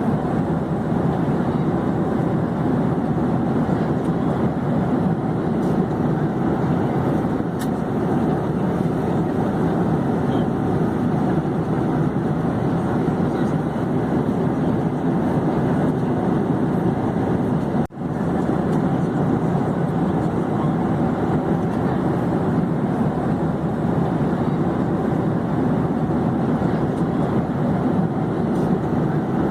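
Airplane in flight: a steady, even drone of engine and airflow noise with no change in pitch. It cuts out for an instant about eighteen seconds in.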